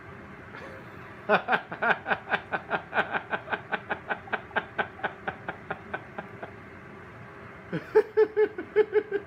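A person laughing in a long, rhythmic run of ha-ha pulses that fades out, then a second, shorter burst of laughter near the end.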